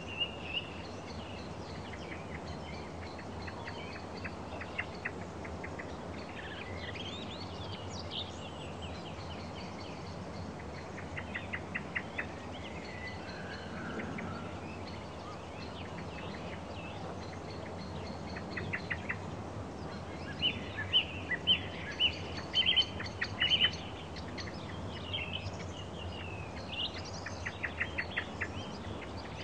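Several songbirds singing, with short chirps and fast trills that come thickest about two-thirds of the way in, over a steady low rumble of wind and road noise.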